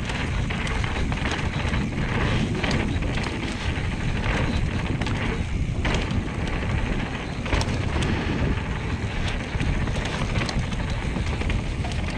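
Wind buffeting the microphone of a camera riding on a mountain bike as it rolls down a dirt trail, with tyre rumble and occasional knocks and rattles of the bike over bumps.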